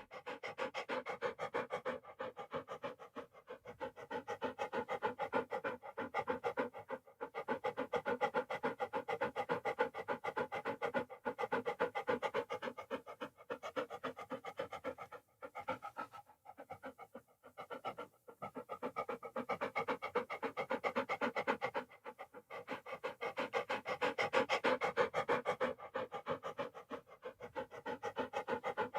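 Dog panting rapidly, quick in-and-out breaths several a second, with a few brief pauses about halfway through.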